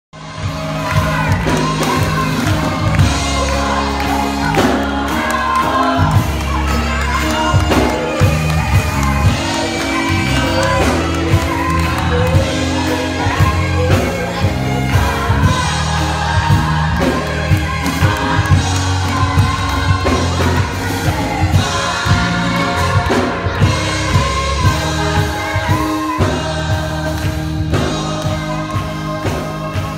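Live gospel music: a church choir singing with band accompaniment over a moving bass line and a steady beat.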